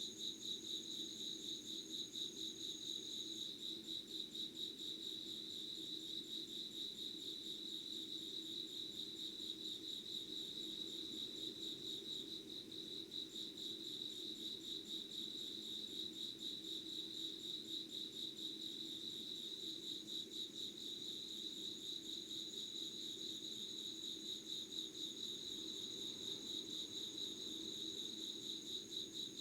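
Insects chirping in a steady, unbroken chorus: a fast pulsing trill, with a fainter, higher trill above it.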